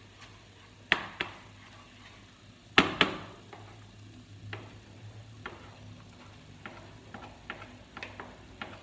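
Wooden spatula knocking and scraping on a cutting board as chopped vegetables are pushed off into a frying pan: a few sharp loud knocks about one and three seconds in, then a run of lighter clicks. A steady low hum runs underneath.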